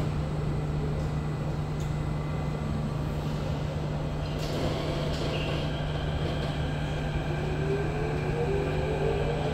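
SMRT CT251 metro train heard from inside the car: a steady electrical hum while it stands, then about seven seconds in the traction motors start a whine that rises in pitch as the train pulls away.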